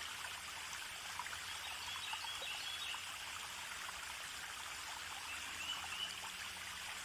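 Steady, fairly faint rush of flowing water, like a stream, with small scattered drip-like ticks and a few faint high chirps.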